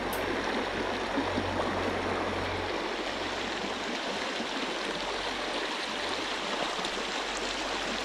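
Shallow rocky creek riffle rushing over stones: a steady, even rush of moving water.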